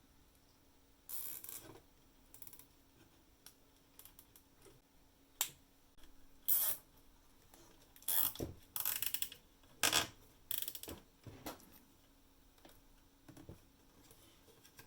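Irregular clicks, clacks and short scrapes of small mechanical parts and tools being handled, busiest in the middle, over a faint steady hum.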